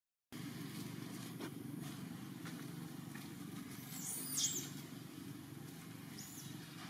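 Steady low outdoor rumble, with a few short high-pitched chirps about four seconds in and again shortly before the end.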